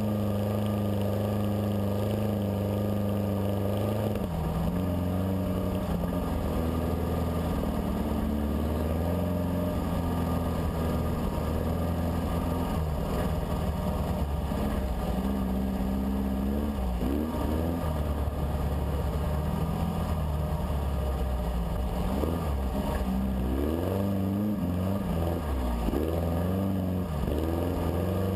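Dune buggy engine running under way while driving over sand dunes, heard from on board. The engine holds a steady pitch for about four seconds, then rises and falls as the throttle changes, with several quick revs up later on.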